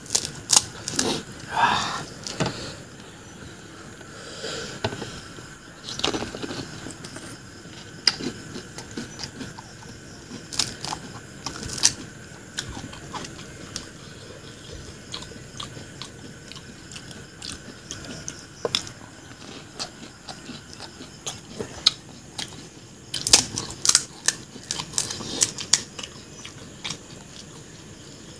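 Close-up eating sounds of pani puri: crisp puris crunching and being chewed, with scattered sharp clicks and scrapes of fingers picking food off a steel plate. The clicks come in clusters, a busy spell near the start and another toward the end.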